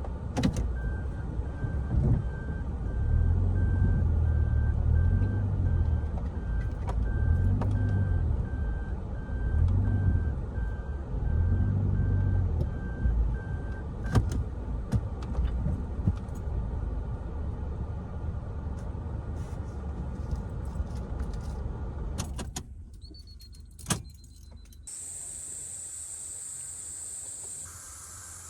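Car engine running, heard from inside the car, with a regularly repeating beep for the first half. The engine sound drops away about 22 seconds in, followed by a single click and then a steady high hiss.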